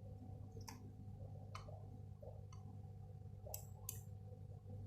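Faint scattered clicks and taps, about six in a few seconds, from small plastic toy trucks being handled, over a steady low hum.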